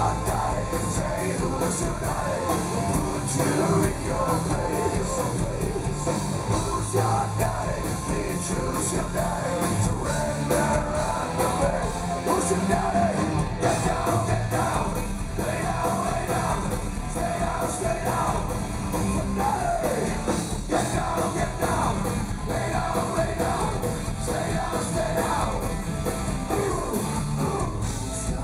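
Live heavy metal band playing loud, with a gruff, half-shouted lead vocal over distorted guitars and drums.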